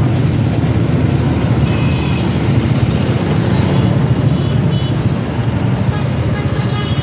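Busy road traffic at close range: the engines of passing cars, motorcycles and rickshaws running together as a steady low hum.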